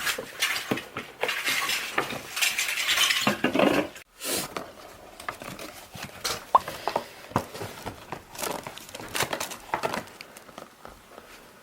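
Dishes and cutlery clinking at a meal table: many short clicks and knocks of tableware. The sound breaks off sharply about four seconds in, then goes on as sparser clinks.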